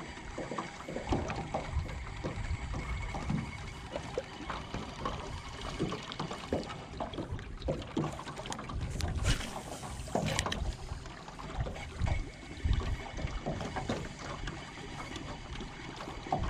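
Small fishing boat moving slowly on a motor that is starting to die, with water slapping and knocking irregularly against the hull over a faint steady motor hum. A brief rush of noise comes about nine seconds in.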